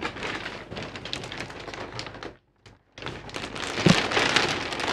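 Crinkling and rustling of the plastic bag wrapping a large TV panel as it is handled, breaking off a little past halfway and coming back louder, with a couple of low thuds about four seconds in.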